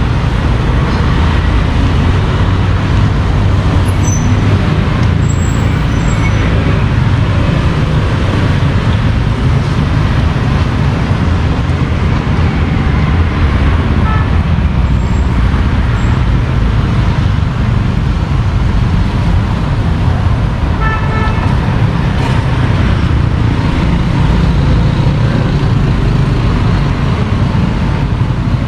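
Steady street traffic noise from passing motorbikes and cars, with a short horn toot about two-thirds of the way through.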